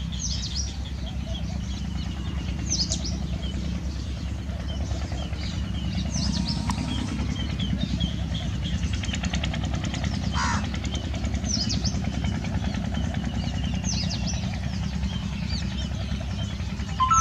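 House sparrows chirping in short, repeated high chirps over a steady low rumble.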